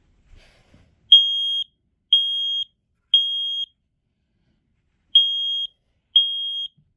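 Smoke alarm set off by its test button, sounding the temporal-three evacuation pattern: three loud, high-pitched beeps about half a second each, a pause, then the next group begins. A few faint clicks come just before the first beep.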